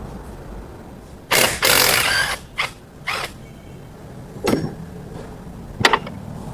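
Repair-shop tool and metal work on a car's front wheel hub during wheel bearing replacement: a loud rushing burst of noise just over a second in, two shorter bursts after it, then two sharp knocks.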